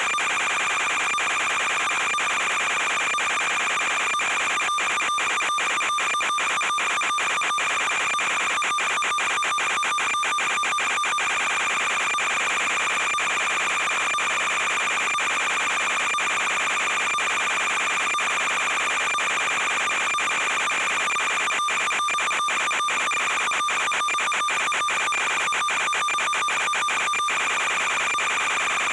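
A steady, unvarying high-pitched buzz with a rapid flutter in it, the same level throughout.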